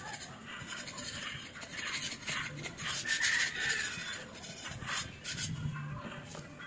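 A hand scraper rasping against a wall, scraping off old flaking paint in short, irregular strokes.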